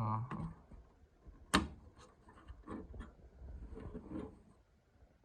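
Small rubbing and scraping handling sounds as the backup battery is worked off the Macintosh SE logic board, with one sharp click about a second and a half in.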